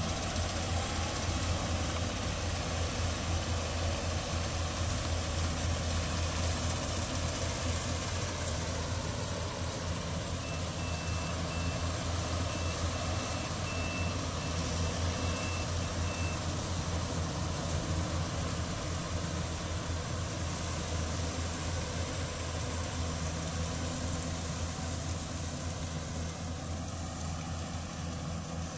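Yanmar AW70GV combine harvester running steadily while harvesting rice in deep mud: a continuous engine and machinery hum. About ten seconds in, a short run of high electronic beeps, roughly two a second, sounds for about six seconds.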